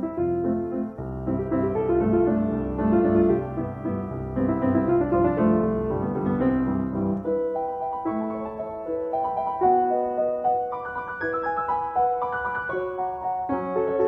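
Piano music: chords and a melody, fuller and lower in the first half, lighter and higher from about halfway.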